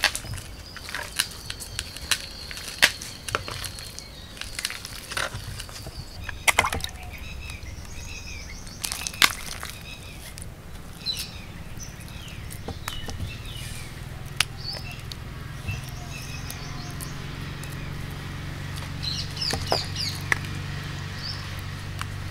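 Sharp knocks and scrapes of a ladle and hands working thick, cooked pearl millet dough in a clay pot, with wet squelching as the dough is squeezed into balls. Birds chirp throughout.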